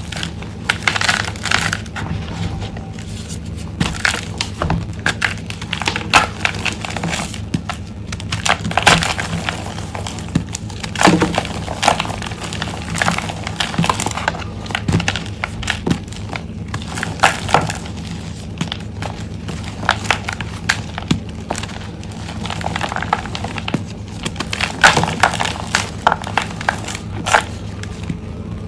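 Reformed dyed gym chalk blocks being crushed and crumbled by hand: irregular crunches and crackles, dense in clusters, over a faint steady low hum.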